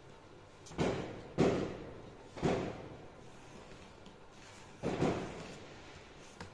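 Five dull knocks at uneven intervals, each fading quickly, the loudest about a second and a half in: a tailor's ruler and marking tools being put down and shifted on a table while a pattern line is marked out.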